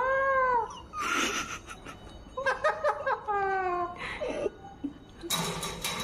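Alexandrine parakeet calling: a pitched call that rises and falls at the start, a rasping screech about a second in, then a quick run of short chattering notes that ends in a drawn-out falling tone. Another rasp comes about four seconds in, and a louder rasp with more rising-and-falling calls near the end.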